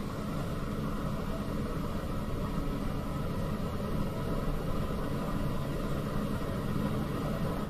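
Steady low mechanical hum and rumble with faint steady tones above it.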